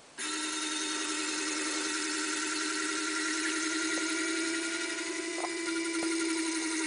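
Small N20 gear motor whining steadily as it drives the screw mechanism that moves a model excavator's arm and bucket. It starts abruptly just after the start and keeps running.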